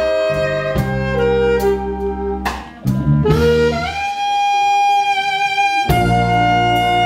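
Concert wind band playing an arranged medley of Korean popular songs, with the clarinet section playing. A little under halfway the low parts drop away, leaving a held higher line, and the full band comes back in about six seconds in.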